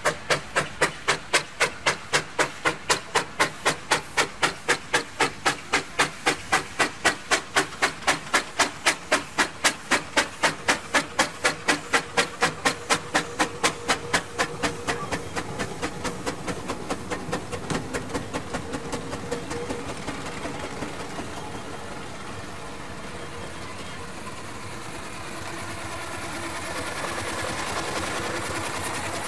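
Machinery knocking in an even rhythm, about three beats a second, which stops about halfway through. A steadier mechanical sound follows and grows a little louder near the end.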